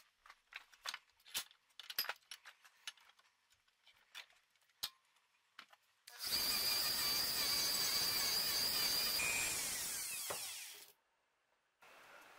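Sharp, scattered metallic clicks and taps of a metal key against a steel bench vise, then a power tool running steadily with a high whine for about four seconds before it winds down and stops.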